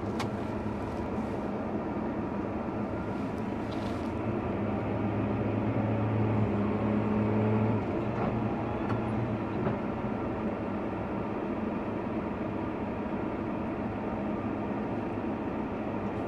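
Tractor engine running steadily under load, heard from inside the cab while pulling a carrot harvester. Its low hum swells somewhat for a few seconds in the middle.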